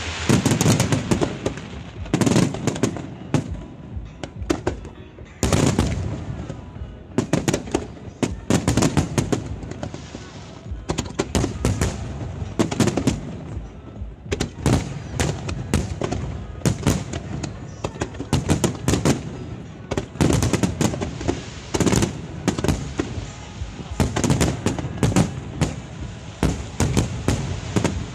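Aerial firework shells bursting in a dense barrage: a rapid run of loud bangs and booms, with clusters of sharp reports close together.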